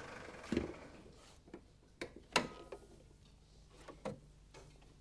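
Scattered light clicks and knocks from a Rover 400 bonnet as its catch is released and it is lifted open. The loudest comes about two and a half seconds in, with a brief metallic ring. An engine's idle fades away in the first second.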